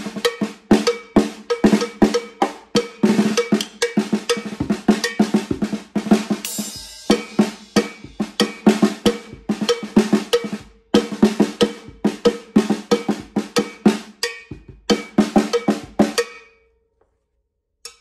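Snare drum damped with Moongel pads, played with wooden drumsticks in fast strokes and rolls, each hit with only a short ring. The playing stops about a second and a half before the end.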